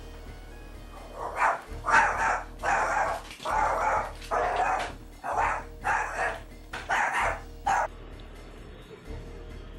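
A dog barking repeatedly, a dozen or so sharp barks at roughly two a second, starting about a second in and stopping shortly before the end.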